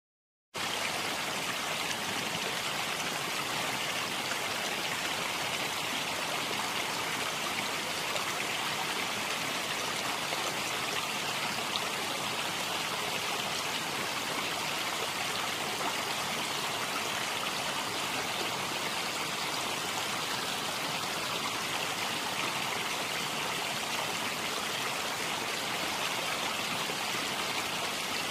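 Steady, even rushing of flowing water, like a stream, starting about half a second in and holding level throughout.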